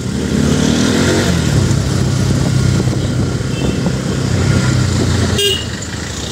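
Motorcycle engine running at low road speed, rising in pitch as it speeds up in the first second or so and then holding steady. A brief sharp beep comes near the end.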